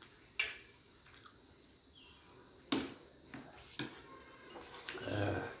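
A spoon clicks and scrapes on a paper plate of chhole three times, with a short rustling, chewing-type burst near the end. A steady high-pitched trill runs underneath.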